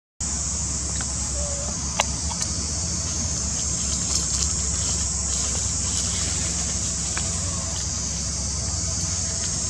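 Steady forest ambience: a constant high hiss over a low rumble, with a few faint clicks about two seconds in and again near seven seconds, after a brief silent gap at the very start.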